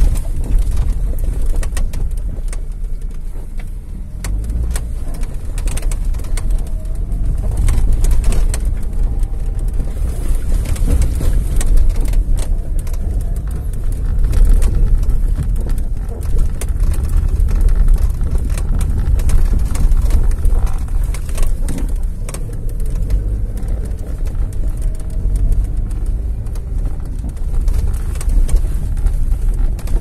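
Loud, low rumble of wind and road noise that swells and eases unevenly.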